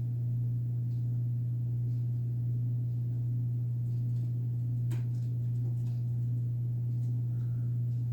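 A steady low hum throughout, with a faint click about five seconds in.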